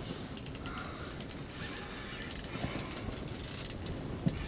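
Fishing reel ticking in quick runs of clicks, three groups each lasting about a second, while a hooked walleye is brought up through the ice hole.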